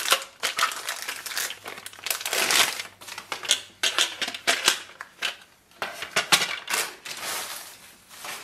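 Thin plastic packaging crinkling and rustling in the hands as it is pulled off a printer's rechargeable battery pack, in irregular bursts of crackle.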